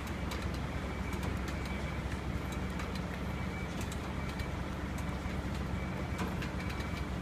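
Heavy diesel engine idling steadily with a low drone, with scattered light metallic clicks and taps from the load being secured.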